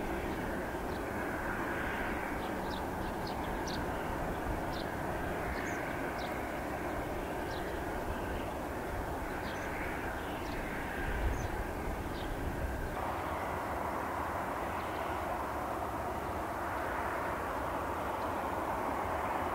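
Boeing 747-8 freighter's four General Electric GEnx jet engines running at taxi power: a steady jet whine and rush. It grows fuller and louder about two-thirds of the way through, with a few short high chirps in the first half.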